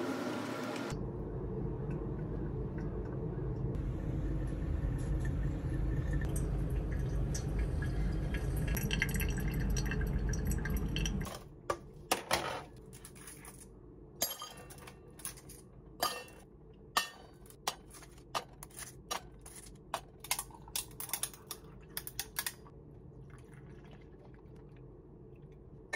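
A steady rushing sound for about ten seconds, its tone rising toward the end, cutting off suddenly. Then a string of light clinks and knocks from cups, a dripper and a glass coffee server being handled while coffee is made.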